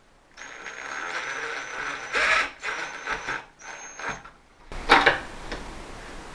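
Cordless drill-driver running in several short bursts, driving screws into a door to fix lever handles, with a steady whine while it spins and louder clattering knocks about two and five seconds in.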